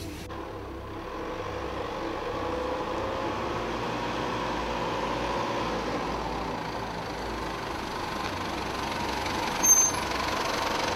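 Pickup truck driving up and pulling in, its engine and tyre noise growing slowly louder as it approaches, with one short high squeak near the end as it comes close.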